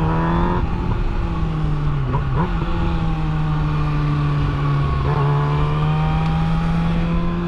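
Sportbike engine running at steady revs while riding, with the pitch briefly dipping and shifting a couple of times, over wind rush.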